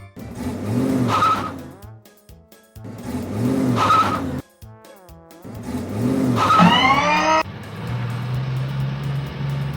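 Cartoon vehicle sound effects: three short bursts of engine revving with a hiss, each about a second and a half long, the last rising sharply in pitch. About seven and a half seconds in, the sound cuts to an engine running steadily with a low hum.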